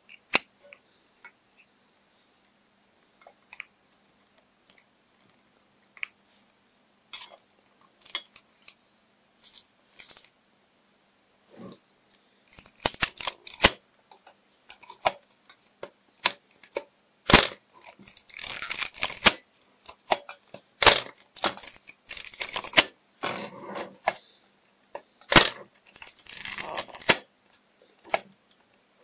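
Praktica LTL 3 35mm SLR being worked with its back open. In the first half there are scattered small clicks of the film being handled. In the second half the rapid-wind lever advances the film with a ratcheting rasp, alternating with sharp single clicks of the shutter, about three cycles four seconds apart, as the film winds itself onto the take-up spool.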